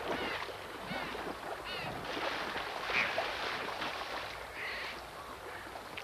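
Stream water rushing and splashing as a brown bear wades through the shallows, with a few short, high calls over the water noise.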